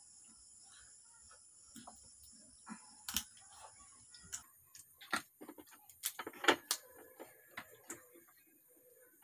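Cooked crab shell cracking and snapping as the crab is pulled apart by hand: a scatter of sharp cracks, with a cluster in the second half and the loudest about six and a half seconds in.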